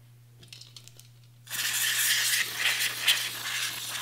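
Aerosol can of non-chlorinated brake parts cleaner spraying through its extension straw into a rifle chamber: a loud, uneven hiss with liquid spattering that starts about a second and a half in, after a few light clicks.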